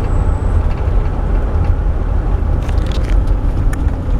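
Steady low road and engine rumble inside a moving car, with a few light clicks about three seconds in.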